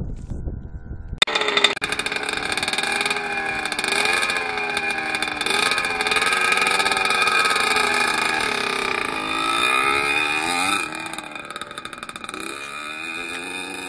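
1982 Yamaha YZ80's small two-stroke single-cylinder engine revving up and down as the freshly restored bike is ridden, its pitch rising and falling with the throttle and gear changes. It comes in suddenly about a second in and drops off quieter near the end as the bike moves away. The bike has a new piston and is being ridden gently.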